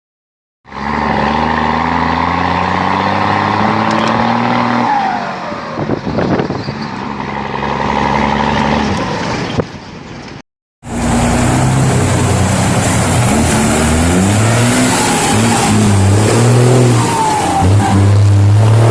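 Mercedes-Benz 1518 truck's turbo diesel engine running hard and pulling through the gears, its note climbing and dropping in steps with each shift. The sound cuts out briefly at the start and again about ten seconds in.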